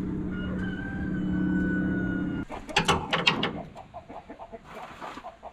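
A steady mechanical hum with a constant whine stops abruptly about two and a half seconds in. Short, irregular clucks like those of chickens follow.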